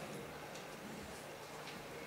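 Quiet lecture-hall room tone with a few faint, scattered clicks.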